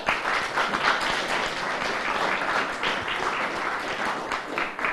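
Audience applauding, a steady patter of many hands clapping, starting at once and fading away near the end.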